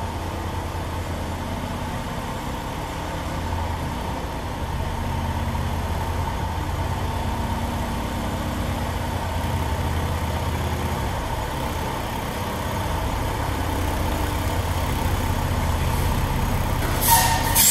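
2022 Mack Anthem semi tractor's diesel engine running near idle as the truck creeps forward, a steady low rumble. A short, loud burst of air hiss from the air brakes near the end as the truck stops.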